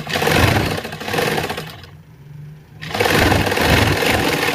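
Sewing machine stitching a seam through fabric in two runs, stopping for under a second around two seconds in and then starting again.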